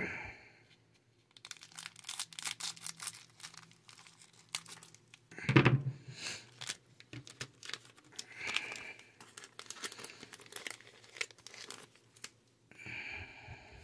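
Booster-pack wrappers crinkling and tearing open, with trading cards handled in between: a run of sharp crackles and rips, with a few louder bursts.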